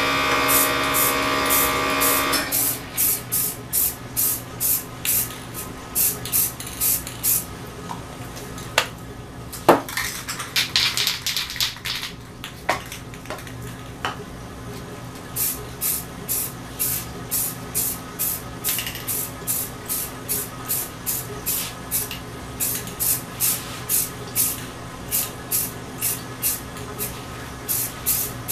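Aerosol spray-paint can sprayed in short, quick bursts, about two a second, with a pause around the middle broken by a few knocks and one longer hiss. A steady hum sounds at the start and stops after about two seconds.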